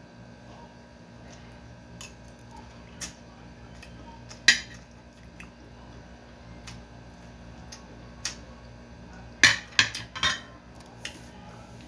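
Metal spoon clinking and scraping against a plate while eating. The clinks are scattered and sharp: a loud one about four and a half seconds in, and a quick run of four near the end.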